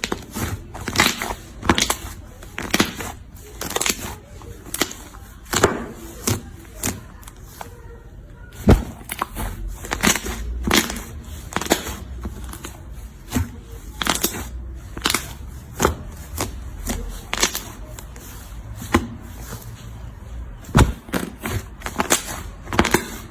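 Slime being pressed and worked, giving irregular pops and crackles, two or three a second.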